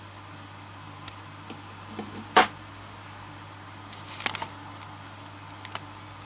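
Handling noises from an unboxing: a few light clicks and taps, one sharp click about two and a half seconds in, and a short cluster of clicks about four seconds in, over a steady low hum.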